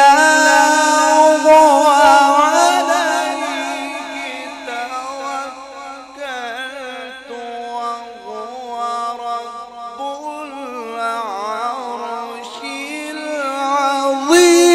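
A male qari recites the Quran in the melodic tajwid style. He draws out a verse in one long ornamented melismatic line, with held notes that bend and turn. The line grows softer in the middle and louder again near the end.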